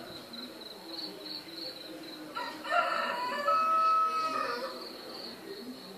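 A rooster crowing once, for about two seconds, starting around midway, over a steady pulsing insect trill.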